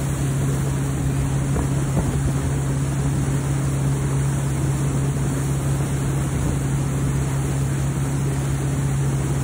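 A wake boat's engine runs steadily under way with a low hum, over the churning wash of its wake and wind on the microphone.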